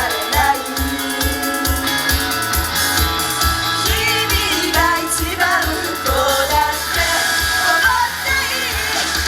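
A J-pop idol song performed live: singing over pop-rock backing music with a steady kick-drum beat.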